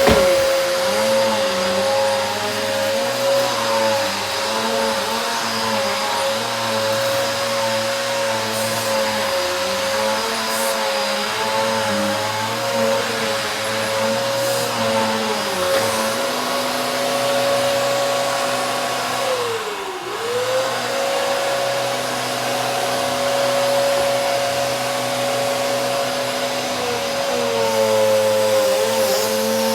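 Vacuum cleaner running with a steady motor whine over the rush of air. About twenty seconds in, the pitch briefly drops and then comes back up.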